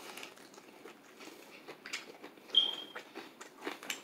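Close-up biting and chewing of crispy fried chicken: soft crunches and wet mouth clicks, scattered and irregular. A short high-pitched squeak sounds about two and a half seconds in.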